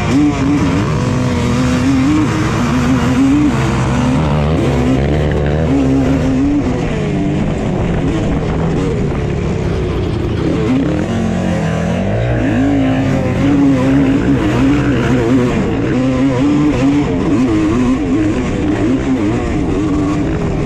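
Honda TRX250R two-stroke quad engine revving hard under race throttle, its pitch climbing and dropping again and again with throttle and gear changes.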